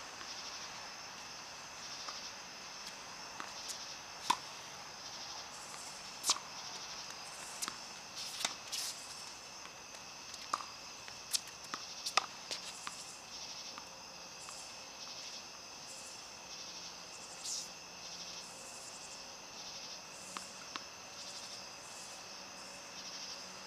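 Tennis balls struck by rackets in a practice rally: sharp pops every second or two, some louder than others, over a steady high-pitched drone.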